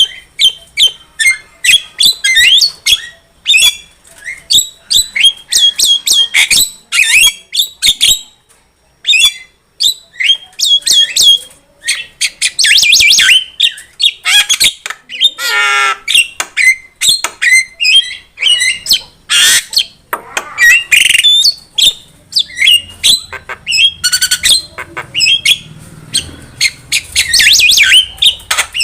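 Javan myna (jalak kebo) singing vigorously: a fast, nearly unbroken run of short whistles, chatter and harsh squawks.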